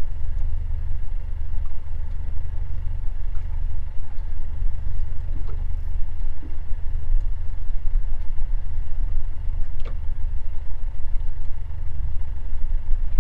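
A boat's engine running steadily at idle, a low rumble with a faint steady hum above it and a few light clicks.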